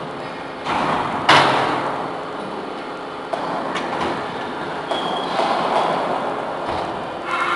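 Scrap metal clanking and crunching in a double-ram metal baler: a loud metallic crash about a second in and several smaller knocks, each ringing briefly over a steady metallic clatter.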